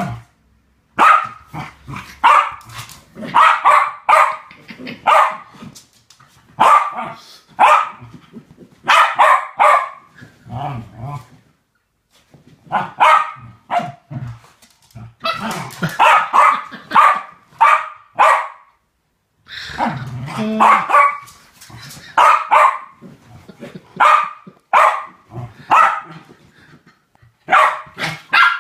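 West Highland Terrier barking during play, in quick runs of sharp barks broken by short pauses.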